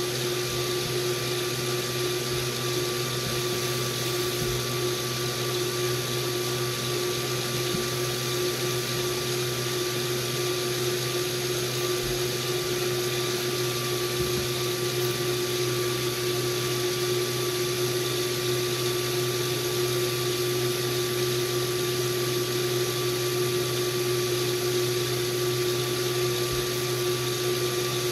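KitchenAid Multicooker stir tower's motor running steadily, turning the stirring paddle through food in the pot: an even hum with a high hiss that never changes.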